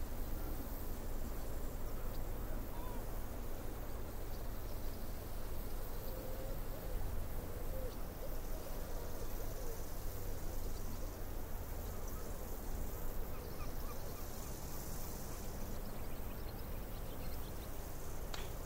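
Steady low roar of ocean surf breaking along the beach, mixed with wind noise on the microphone.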